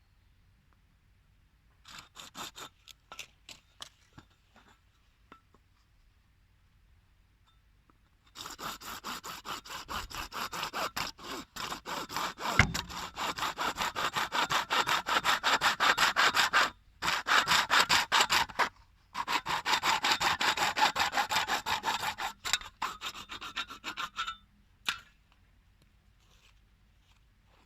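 Rapid back-and-forth rasping strokes of a hand tool on hard material. A few short strokes come about two seconds in, then a long even run of about fifteen seconds, broken by two short pauses.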